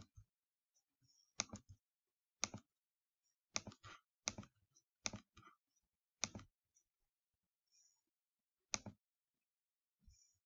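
Computer mouse button clicking: about a dozen sharp single clicks, several in quick pairs, at an irregular pace with longer pauses towards the end.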